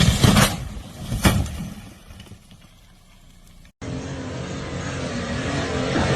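A few loud knocks and bangs in the first second or so, the kind a 4x4 makes jolting over rough ground, dying away. After a cut, an off-road vehicle's engine runs under load, its pitch wavering and slowly climbing.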